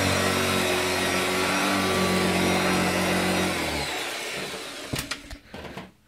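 Hoover Junior 119 upright vacuum cleaner running steadily on carpet, then switched off a little past halfway so that the motor winds down and falls quiet. A few sharp knocks follow near the end.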